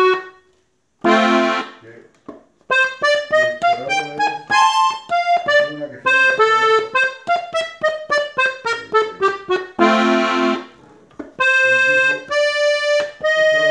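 Gabbanelli button accordion playing an ornamental run (adorno) in F: a short note and a chord, then a fast run of single notes that climbs and falls, a full chord, and a few longer held notes near the end.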